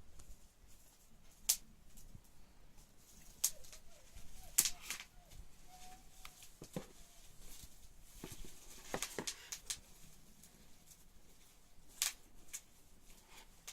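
Scattered clicks and short rustles of a tablet and its cardboard box and packaging being handled during unboxing.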